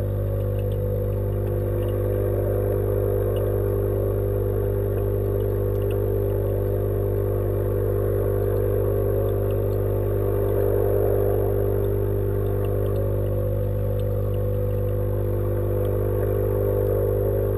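Steady electric hum of the tank's pump, with a deep low tone and a higher buzz above it, unchanging throughout. A few faint ticks sound over it.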